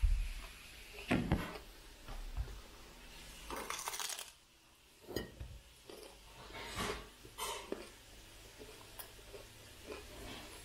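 A raw broccoli head handled and a floret broken off: irregular crisp snaps, rustles and light knocks, with a denser crackling patch about four seconds in. A couple of dull thumps come in the first second or so.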